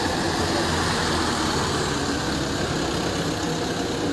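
Force Traveller ambulance van's diesel engine running steadily at low speed as the van rolls slowly past.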